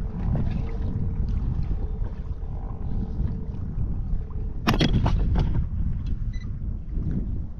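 Wind rumbling on the microphone over the sea from a fishing kayak, with a quick clatter of sharp knocks about five seconds in.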